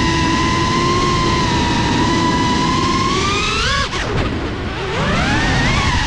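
FPV quadcopter's brushless motors and propellers whining at a steady pitch, then revving in quick rising swoops as the throttle is worked, with a brief drop about four seconds in.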